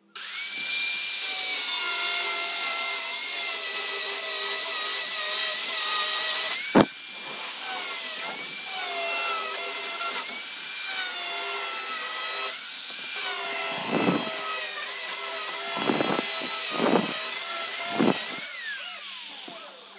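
Angle grinder with a cut-off disc cutting through a polycarbonate windscreen sheet: a high motor whine that starts at once and sags in pitch each time the disc bites, with one sharp click about seven seconds in. The motor winds down near the end.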